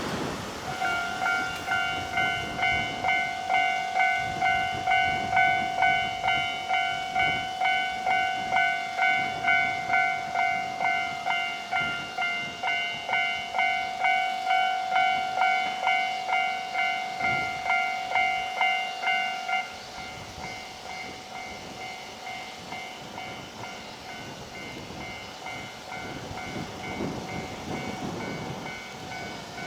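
Japanese railway level crossing alarm ringing its repeated electronic two-tone "kan-kan", about two strikes a second. About twenty seconds in the ringing drops to a clearly quieter level and carries on, and near the end a low rumble builds under it.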